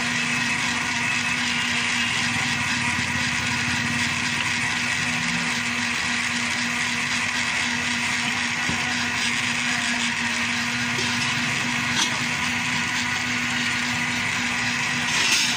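Electric blender motor running steadily as it blends a jug of banana milkshake, with a short click about twelve seconds in and a brief clatter near the end.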